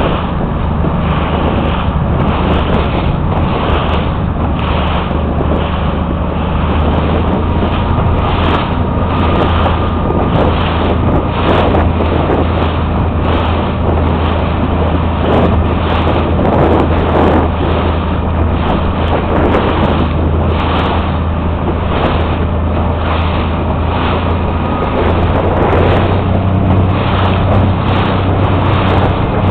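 Motorboat engine running steadily under way, with water splashing and rushing against the hull and wind buffeting the microphone.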